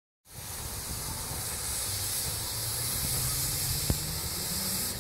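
Narrow-gauge steam locomotive hissing steadily as it pulls its train away, with a low rumble underneath. One sharp click sounds a little before four seconds in.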